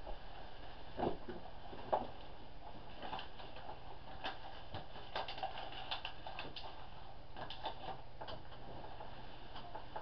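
Feet in socks stepping up onto a bed and treading on the pillows and bedding: two soft thumps about one and two seconds in, then light rustling and creaking of the bedclothes, over a steady low hum.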